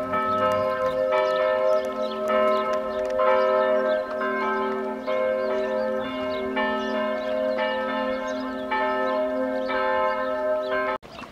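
Church bells ringing a peal: several bells sound together, with fresh strikes about once a second over their lingering hum. The ringing cuts off suddenly near the end.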